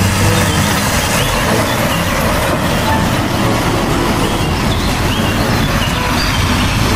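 Heavy semi-trailer truck driving past on a wet road: steady diesel engine rumble with tyre hiss off the wet tarmac.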